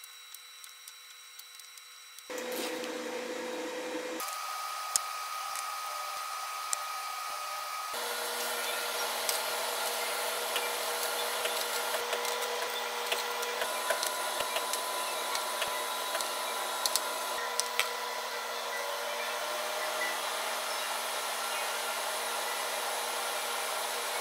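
Steady whirring of a fan or motor running in a commercial kitchen, with a couple of held tones in it and a few light clicks. It starts about two seconds in and gets louder in two steps.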